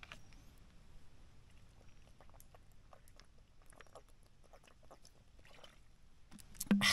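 A person drinking water from a container, with faint gulps and many small clicks. Near the end comes a short, louder breathy exhale with a brief bit of voice, like an "ahh" after drinking.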